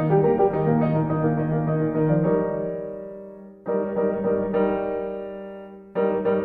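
Background piano music. A short run of notes gives way to held chords, each left to fade before the next is struck, about every two to three seconds.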